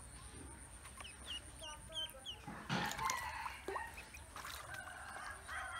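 Ducklings peeping in a series of short, high chirps, with a brief splash of water about halfway through.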